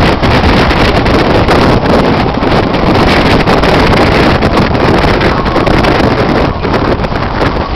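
Wind rushing over the microphone from a moving car, with the car's road noise underneath.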